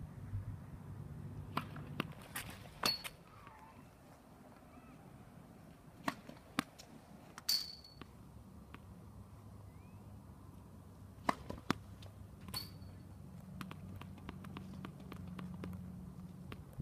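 Tennis balls struck by rackets and bouncing during play: sharp pops in clusters every few seconds, a few of them with a short high ping from the strings, over a faint steady low hum.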